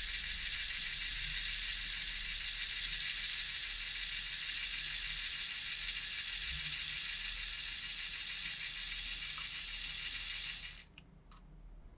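Lego Technic Power Functions electric motor whirring steadily as it drives the worm gears of a forklift's lifting mechanism. The whirr cuts off suddenly near the end, followed by a couple of faint clicks.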